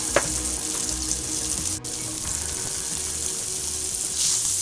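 Plant-based burger patties frying in hot olive oil in a stainless steel pan: a steady sizzle that grows louder near the end as the pan is shifted on the burner.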